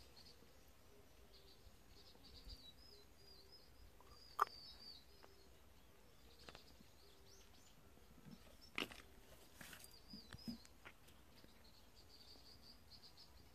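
Near silence outdoors, with faint distant birds chirping now and then and a couple of short sharp clicks, the loudest about four seconds in and another about nine seconds in.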